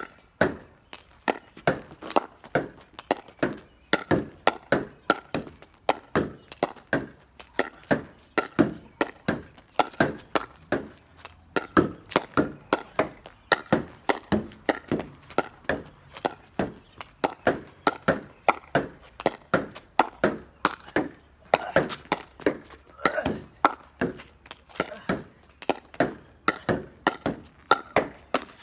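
Pickleball rally against a garage door: a paddle striking a plastic pickleball, the ball knocking off the door and bouncing on the ground, in a quick run of sharp pops, about two to three a second.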